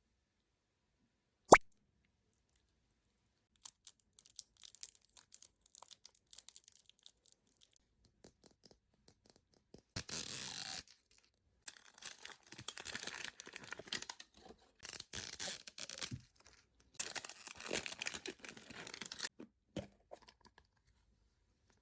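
A single sharp click, then packaging being torn open and crinkled in long, crackly bouts.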